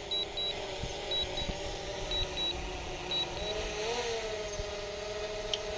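Quadcopter drone's propellers humming steadily while it hovers and descends, the pitch rising briefly about four seconds in. Over the first half, high double beeps about once a second from the remote controller sound while the battery is low.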